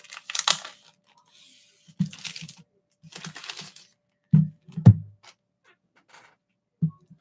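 Comic-book packaging and plastic comic bags rustling and crinkling in short bursts as books are unpacked, with a sharp knock about five seconds in.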